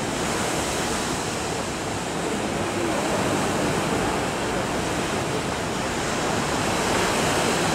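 Steady rushing noise of sea and wind, even and unbroken, with no distinct events.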